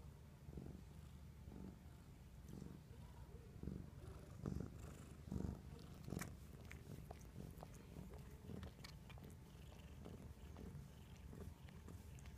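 Domestic cat purring faintly while being stroked, a low rumble that swells and fades about once a second. A few short clicks stand out around the middle.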